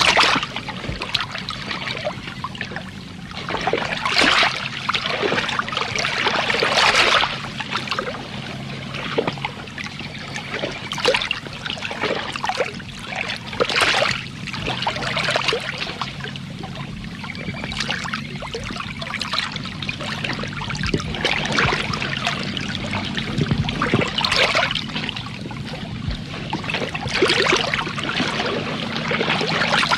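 Water splashing and trickling in irregular surges, one every second or so, over a steady low hum.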